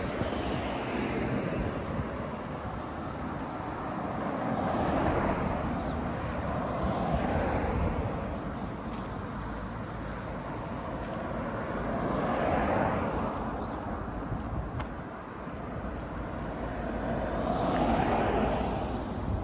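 Road traffic: about four cars pass one after another, each swelling up and fading away, over a steady low wind rumble on the microphone.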